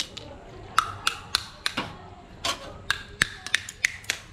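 Hickory-smoked mud crab shell being cracked open: an irregular run of sharp cracks and clicks that come thicker in the last second or so.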